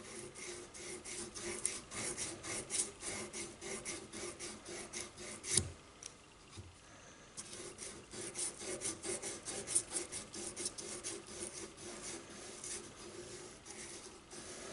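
600-grit sandpaper rubbed back and forth by hand against the steel throat and feed ramp of a .45 1911 barrel in quick, rasping strokes, polishing out tool marks and scratches. About halfway through there is a sharp tap and the rubbing stops for about a second and a half, then starts again.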